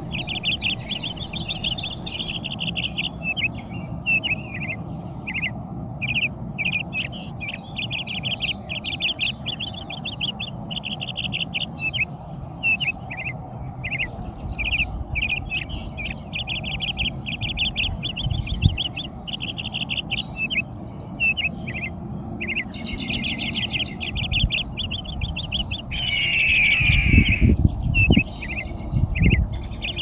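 Many small birds chirping and chattering at once, in fast runs of short high notes that go on almost without a break, over a steady low rumble. A few low bumps come near the end.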